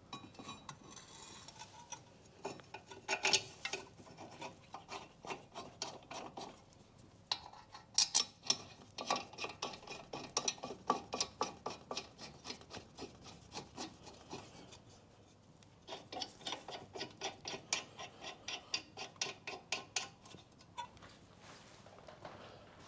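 Hand work on the brake caliper carrier at the hub: rapid, evenly spaced metallic clicking and rasping strokes, about four a second, in three bursts with short pauses between.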